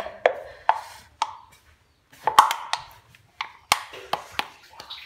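A string of irregular sharp knocks and taps as a jar of chilli satay sauce is shaken and tapped out over a plastic bowl of sliced raw pork, with soft wet plops of sauce landing on the meat.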